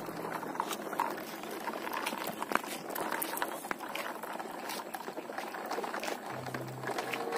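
Wheels of toy trucks rolling over rough paving blocks as the trucks are pulled along on a string: a steady gritty crackle with many small scattered clicks.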